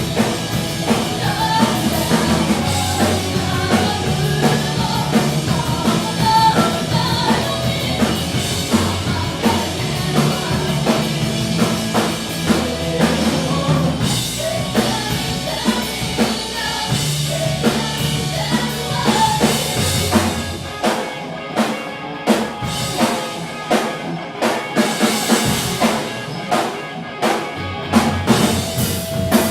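Rock music with singing and a drum kit. About two-thirds of the way through, the low bass part drops out, leaving sharper drum hits.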